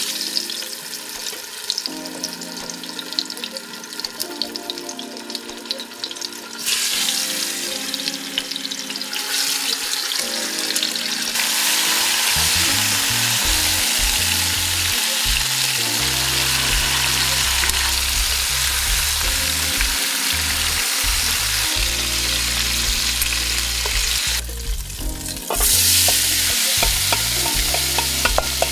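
Oxtails frying in olive oil in a stockpot, a steady sizzle as the pieces are turned with tongs; near the end, chopped onion, celery and carrot are being stirred in the pot. Background music with a deep bass line plays underneath, heavier from about halfway through.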